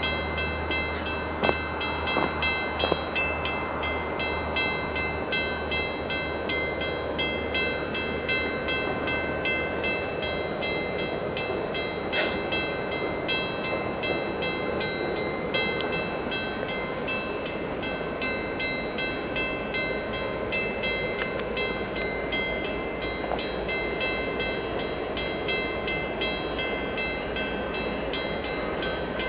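Diesel-electric freight locomotives of a CN train, led by a GE ES44DC, approaching: a steady low rumble under a constant noisy haze. Above it, high ringing tones repeat at even, short intervals.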